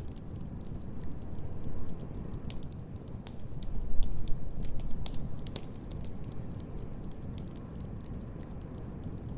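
Wood fire crackling in a fireplace: scattered sharp pops and snaps over a steady low rumble, which swells louder for a couple of seconds about midway.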